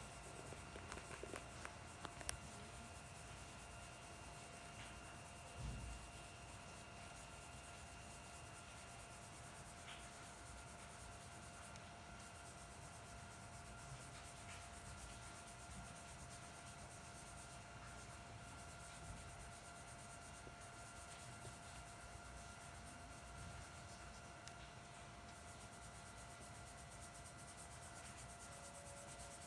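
Faint rubbing of a small brush stroked over charcoal on drawing paper, blending in hair strands. A faint steady high whine sits underneath, with a few small clicks near the start and a soft thump about six seconds in.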